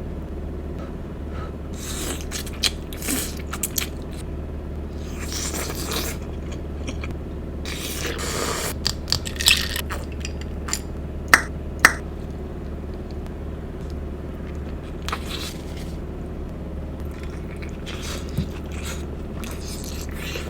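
Close-miked eating of a sausage and egg ramen boil: irregular chewing and scraping noises with a few sharp clicks, over a steady low hum.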